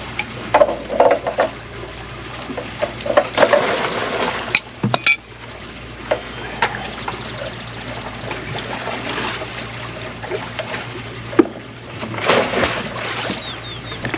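Water sloshing and pouring as a bucket is rinsed out, with a few sharp clinks and knocks about five seconds in.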